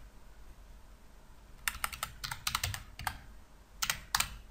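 Computer keyboard keys typed in short runs as a password is entered. The keystrokes start nearly two seconds in and continue for over a second, with a few more near the end.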